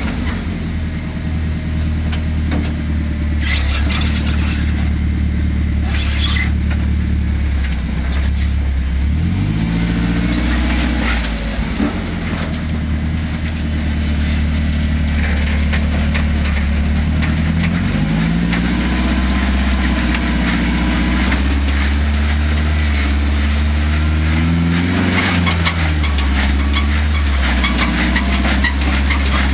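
Off-road 4x4 truck engine running at a low, steady idle. It is revved up and back down three times: about nine seconds in, again around eighteen seconds, and once more near the end.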